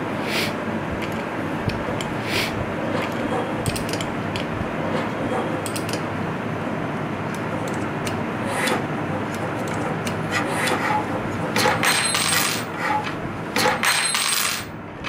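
Small open-end wrench clinking against steel bolts and a steel linear slide as M4 bolts are tightened into an MDF plate: a few scattered metallic clinks, then a quicker, louder cluster of them near the end, over steady background noise.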